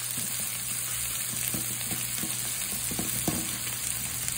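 Sliced onions sizzling steadily in hot oil in a metal kadai while a spatula stirs them, with a few light clicks of the spatula against the pan around the middle.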